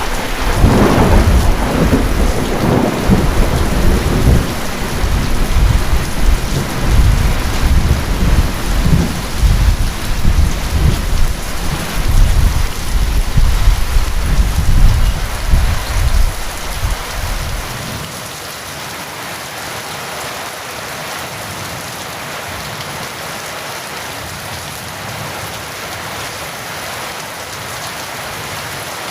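Thunderstorm: a long, loud roll of thunder rumbles over steady heavy rain and fades out about two-thirds of the way through, leaving only the even hiss of rain.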